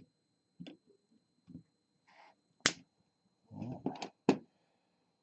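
Hand tools prying at a LiFePO4 battery's case, opening it like a can opener: scattered clicks and snaps, a sharp crack a little under three seconds in, and a cluster of louder knocks around four seconds in.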